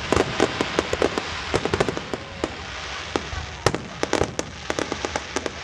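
Aerial fireworks going off: a rapid, uneven run of sharp bangs and cracks from bursting shells over a steady hiss, thickest in the first half.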